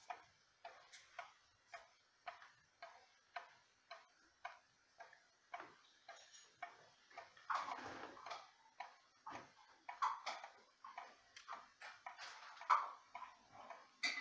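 Ethan Allen skeleton wall clock's 8-day movement ticking steadily, about two ticks a second. A few louder, unidentified sounds come over the ticking around the middle and near the end.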